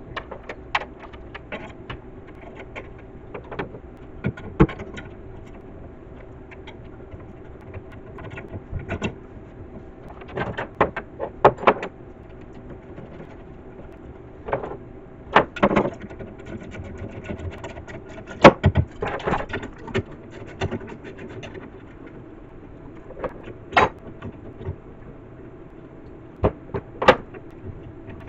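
Scattered sharp knocks, clicks and clanks of tools and hardware being handled during car body panel fitting, irregular and a few seconds apart, over a steady low hum.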